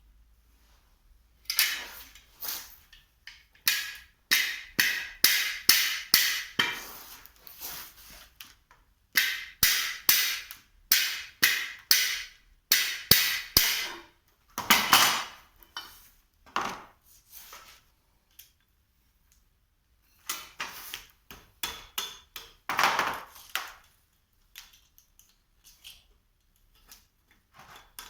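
A hammer striking metal, about two blows a second in several runs with short pauses between them. The blows fall on parts of a GAZ hydraulic cylinder being taken apart for new seals.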